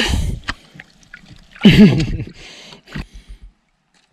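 Water splashing and dripping as a hooked tench is landed, the splash dying away in the first moment, with a short shout about halfway through and a few small clicks after it.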